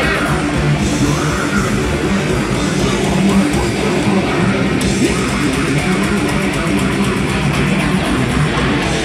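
Heavy metal band playing: loud distorted electric guitars over drums, dense and unbroken.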